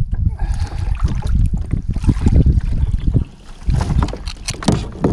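Water splashing and lapping around a kayak's hull beside a person swimming in it, over a rumble of wind on the microphone. Near the end come a few sharper splashes and knocks as the swimmer grabs the side of the kayak.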